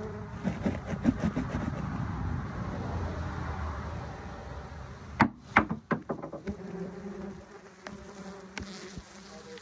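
Wasps buzzing as they fly close around their paper nest, the drone rising and fading as single insects pass the microphone. A few sharp knocks come about halfway through.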